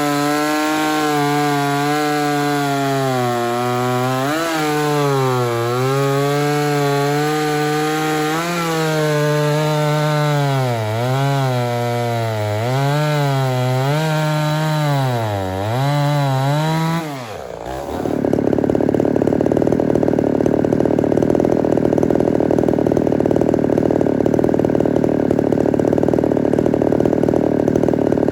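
Ported Homelite Super XL-130 two-stroke chainsaw running hard in wood, its pitch dropping and recovering again and again as the chain bogs and clears in the cut. About 17 seconds in the sound changes suddenly to a steady, denser running noise.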